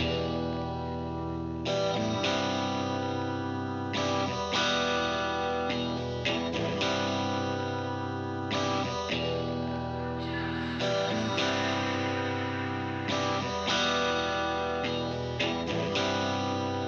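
Background music: a guitar-led instrumental passage with electric guitar playing repeating chords. It fades in at the very start, then carries on at a steady level with regular chord changes.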